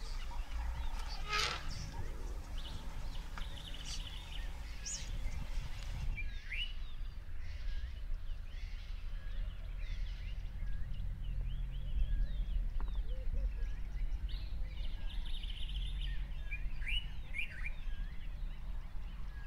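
Birds chirping in many short calls, several of them quick rising chirps, over a steady low background rumble.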